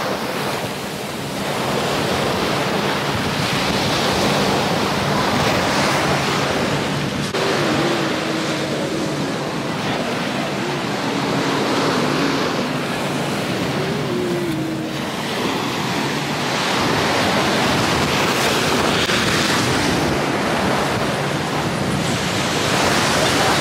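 Small ocean waves breaking and washing up onto a sandy beach: a steady rushing surf that swells and eases.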